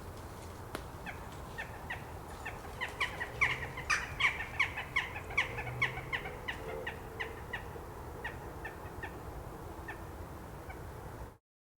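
A flock of jackdaws calling at their night roost: a rapid chorus of short, sharp calls that builds up about three seconds in and thins out again, over a steady low background noise. The sound cuts off abruptly near the end.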